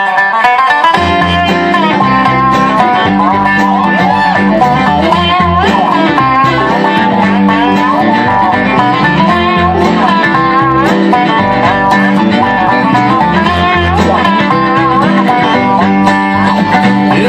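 Bluegrass band playing live and loud: acoustic guitar, upright bass, fiddle, dobro and banjo together, over a steady bass beat.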